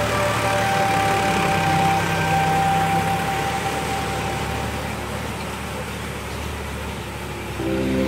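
Sonalika DI 745 III tractor's diesel engine running under load as it drives a rotavator through flooded paddy mud. It gets quieter through the middle and louder again near the end.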